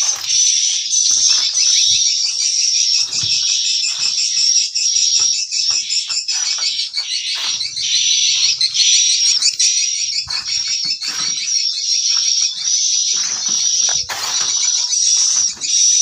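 Swiftlet calls: a loud, dense, unbroken high twittering chatter, with a few faint knocks underneath.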